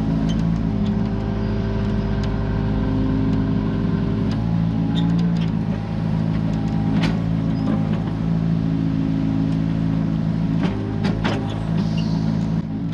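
Komatsu mini excavator's diesel engine running steadily under hydraulic load, its pitch shifting a couple of times as the boom and bucket work. A few short knocks and scrapes from the bucket digging into soil and rubble.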